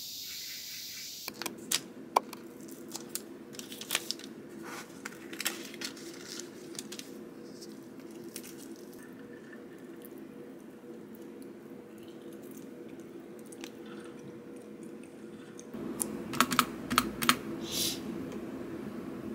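Typing on a computer keyboard: irregular key clicks over a steady low hum, with a quick flurry of louder keystrokes near the end.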